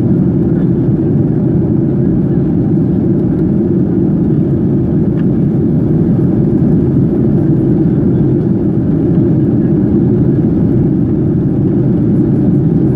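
Steady cabin noise of a Boeing 737 in flight, heard inside the cabin from a window seat: a dense, even, low rumble of engines and rushing air, with no change in level, during the descent towards landing.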